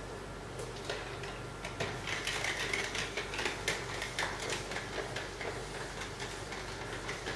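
Handheld whiteboard eraser rubbing quickly back and forth across a whiteboard, wiping off marker writing in a rapid run of scrubbing strokes that starts about a second in.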